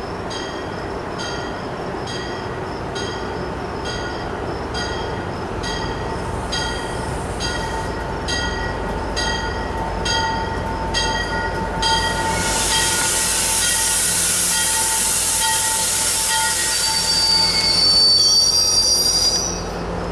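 MBTA commuter rail train pulling into a station and braking. A bell rings steadily about twice a second over the rumble of the approaching train, then a loud hiss and, near the end, high brake and wheel squeal as the coaches slow to a stop alongside.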